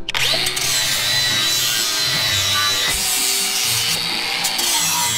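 Angle grinder running against steel, stripping paint off a truck's front winch mount: a dense, even grinding hiss with a steady high whine.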